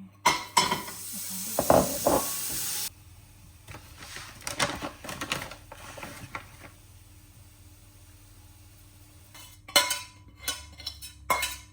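Spinach and kale going into a hot frying pan and sizzling loudly for a few seconds before cutting off abruptly, followed by scattered clinks and scrapes of a utensil against the pan and dishes.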